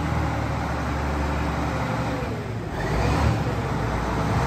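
Large tractor's diesel engine running close by, a steady low drone that eases off briefly about halfway through and then picks up again.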